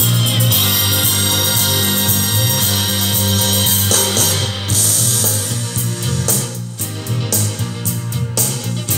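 Music playing through a pair of Aiwa SX-767 three-way speakers with 8-inch woofers, at a loud level. The music is steady at first and turns choppier about six seconds in.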